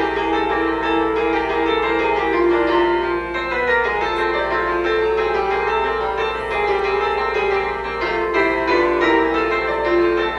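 Instrumental film score music with piano, playing many notes without a break.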